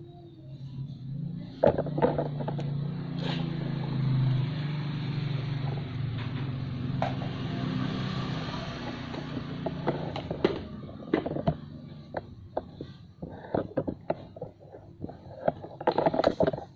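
A low motor hum starts about a second and a half in, swells, then fades away after about ten seconds. Scattered clicks and knocks run through it and cluster near the end.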